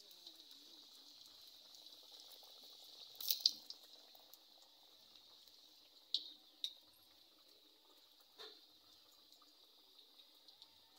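Pitha batter frying in hot oil in a small wok, a faint steady sizzle. A few sharp clicks cut through it, the loudest a pair about three seconds in.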